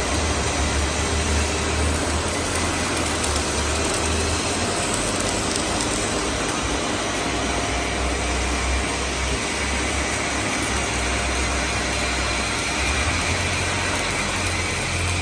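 Robot welding machine running: a steady hiss with a low hum that swells and fades every few seconds.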